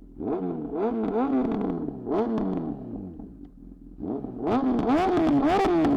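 Honda CB1000R inline-four with aftermarket headers and a Leo Vince carbon-fibre slip-on exhaust, revved in throttle blips: two rev-ups and drops in the first couple of seconds, a short lull near idle, then quick repeated blips from about four and a half seconds in.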